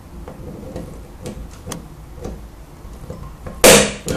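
A spring-loaded automatic center punch snaps once, sharply, about three and a half seconds in, punching a small divot into 3 mm aluminium plate to start a drill bit. Before it come a few faint ticks of the punch being set in place.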